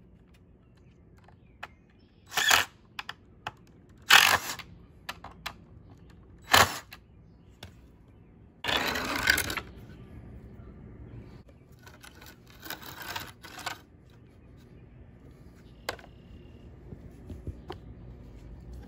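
A series of short clatters, knocks and scrapes as weathered wooden boards and a cordless drill are handled on a concrete slab, with small clicks in between. The longest scrape, nearly a second, comes about halfway through.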